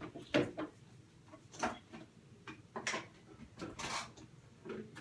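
White slime being pressed and squished by hand, giving about five short sticky pops and crackles roughly a second apart.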